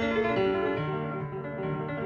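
Instrumental background music with a bass line stepping downward, the added score of a silent film.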